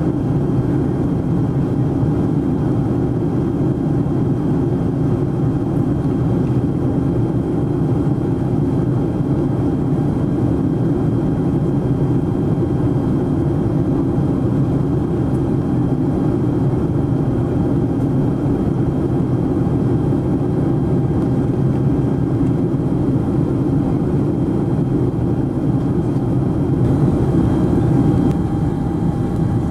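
Boeing 747SP in flight, heard inside the cabin: a steady, low rush of jet engine and airflow noise with a faint even hum.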